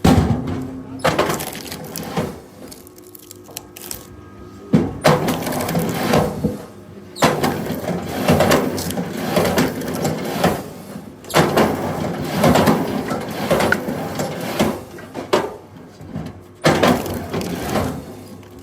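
Firewood cracking and splintering in a series of loud bursts, each a second or two long, with sharp starts several times over.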